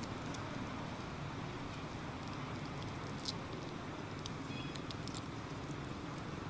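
Steady outdoor background noise with a low rumble, with a few faint clicks and a brief faint high chirp about four and a half seconds in. There are no monkey calls.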